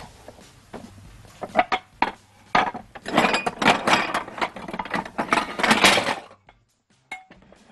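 Kitchen dishes and utensils being handled: a few separate clinks and knocks, then a dense clatter for about three seconds that stops abruptly.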